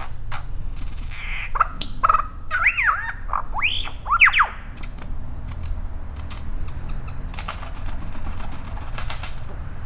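Superb lyrebird singing in display: a run of loud swooping whistled notes that slide up and down, about one and a half to four and a half seconds in, mixed with sharp clicks. Quieter clicking and scratchy calls follow.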